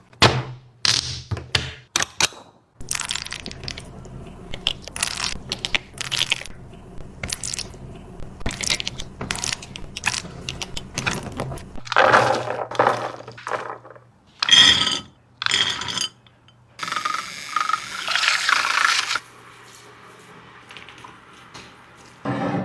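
Dog eating from a bowl: irregular crunches, scrapes and sharp clinks of the bowl.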